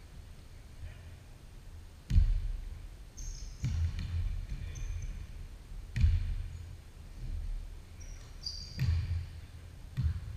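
A basketball bouncing on a hardwood gym floor: about five irregular, heavy thumps that echo through the hall, with a few short, high sneaker squeaks in between.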